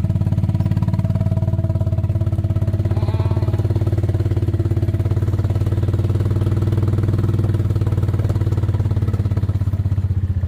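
A small vehicle engine running steadily at an even speed, its pitch holding level with no revving.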